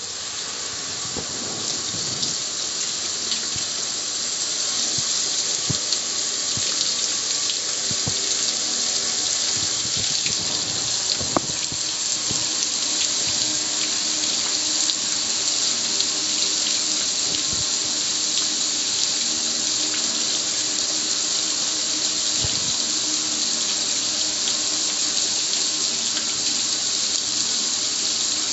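A steady spray of water hitting and splattering off the lid and control panel of a black gas grill, heard as an unbroken rush of water.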